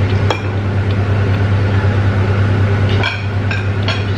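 A steady low hum with a few light clinks of cutlery on plates, once shortly after the start and several times near the end.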